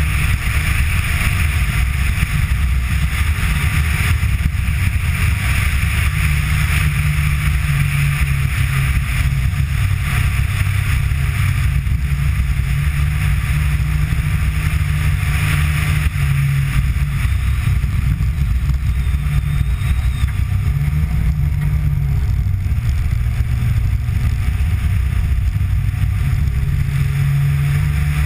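Rally car's engine running hard at speed, its note rising and falling a little several times, under a steady rush of wind and tyre noise.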